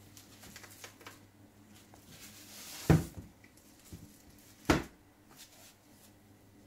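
Packaging being handled: foam sheet and plastic wrap rustling, with two sharp knocks a couple of seconds apart in the middle.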